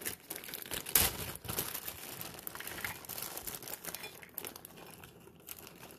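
Plastic zip-top bag crinkling as dry dog kibble is poured from it into a stainless steel bowl, the pellets clicking into the bowl, with one sharp knock about a second in.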